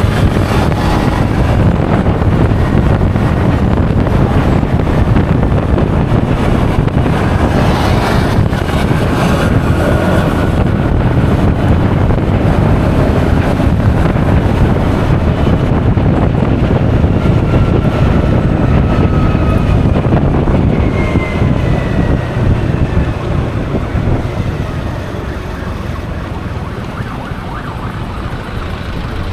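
Wind buffeting the action-camera microphone while riding a Honda Forza 350 single-cylinder scooter, with engine and road noise underneath. A faint gliding whine comes through midway, and the noise eases about two-thirds of the way in, as the scooter slows.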